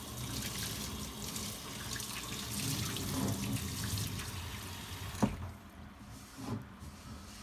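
Kitchen tap running steadily into a stainless steel sink for about five seconds, stopping with a sharp knock. After that, fainter rubbing of a sponge on the cast iron skillet.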